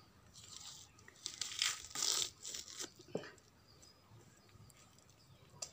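Chicken skin tearing as it is pulled off the carcass by hand: a run of rasping rips over about two seconds, followed by a single sharp click.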